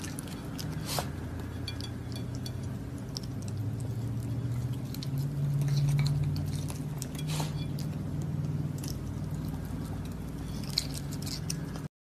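Raccoon eating whipped cream from a plate: soft smacking and licking with scattered light clicks, over a low steady hum.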